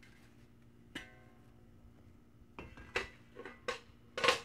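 Garden tool working a flower bed: a sharp metallic clink with a brief ring about a second in, then a run of short scrapes and knocks, the loudest near the end.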